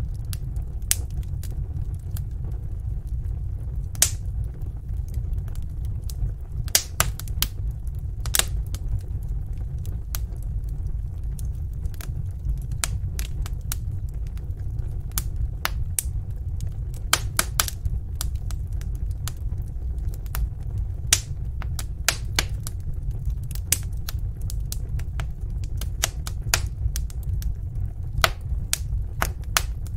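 Fire crackling in a fireplace: irregular sharp pops and snaps, several close together at times, over a steady low rumble of the burning fire.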